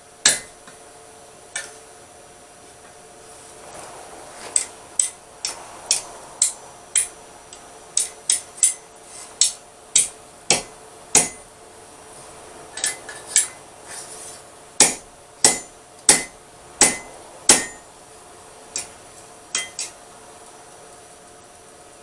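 Blacksmith's hammer striking steel on an anvil, blow after blow in irregular runs of about two a second with short pauses between, over a faint steady hum.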